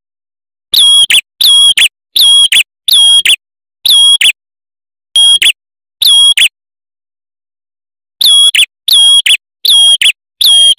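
Male ashy tailorbird (prenjak kepala merah) singing: a string of loud, clear whistled notes. Each note is held on one pitch and ends in a quick upward flick, repeated about once every three-quarters of a second, with a pause of under two seconds about halfway through.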